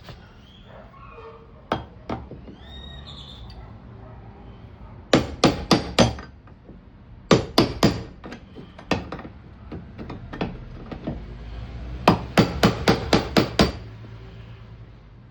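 Hammer tapping the fuel pump's lock ring in quick runs of light, sharp strikes, knocking the ring round to free it.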